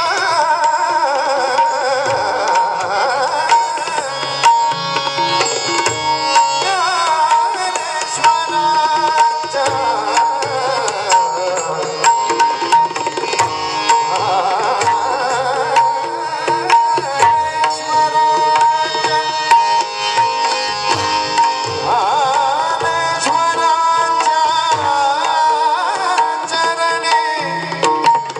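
A Marathi devotional bhajan sung with an ornamented, gliding melody over a rhythmic hand-drum accompaniment and a steady drone note.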